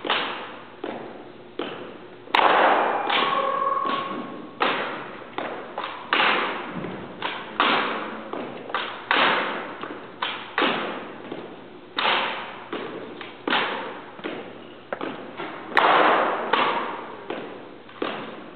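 Two drill rifles being spun, tossed and caught in a rifle drill routine: an irregular string of sharp slaps and thuds as hands catch the rifles and butts strike the floor, each echoing in the hall. The loudest hits come about two seconds in and near the end.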